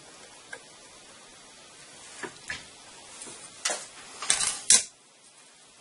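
Metal hand tools clinking and clattering on a workbench as a steel rule is picked up from among them: a few light knocks, then a louder burst of clatter about four seconds in.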